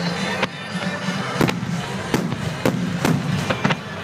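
Aerial firework shells bursting in a string of sharp bangs, about six or seven, coming faster toward the end.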